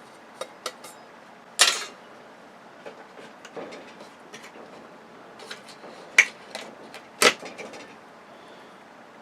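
Metal parts of a dismantled flat-screen TV clanking and rattling as they are handled and set down: scattered light knocks with a few sharp clanks, the loudest about one and a half seconds in and twice around six to seven seconds in.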